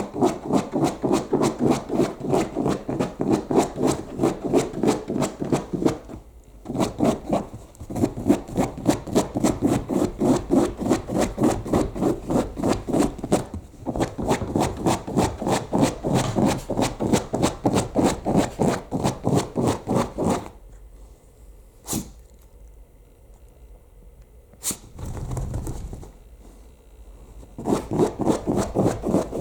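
Shiba Inu digging fast with its front paws: a rapid, even run of scraping strokes against a surface. It breaks off briefly twice, then stops for several seconds and starts again near the end.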